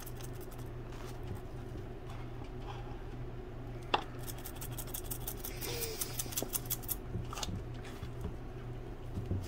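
Small bristle brush dabbing and scraping epoxy resin into fiberglass cloth inside a small RC boat hull: soft scratchy strokes, quickening into a run of rapid strokes around six seconds in, over a low steady hum. One sharp tap about four seconds in.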